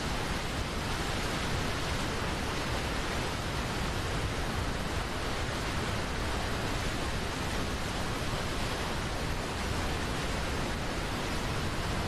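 Waterfall pouring down a steep rock face: a steady, even rush of falling water.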